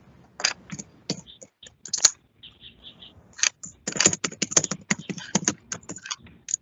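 Irregular run of quick clicks and taps in clusters, densest from about four to five and a half seconds in.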